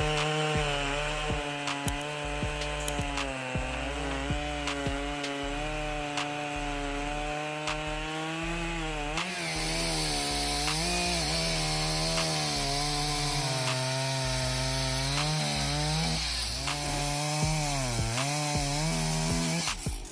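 Two-stroke chainsaw running at high speed and cutting wood, its engine note sagging and recovering several times as the chain is loaded in the cut. A harsher hiss joins about halfway through.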